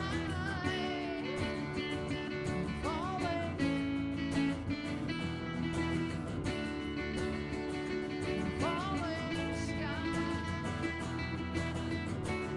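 Live band playing with acoustic guitars strumming, and a lead melody that slides up and down in pitch a few times over the top.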